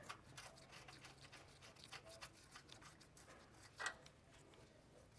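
Near silence with faint light clicks and rustling of a gloved hand threading a nut and washer onto a suspension bolt, and one louder short clink just before four seconds in.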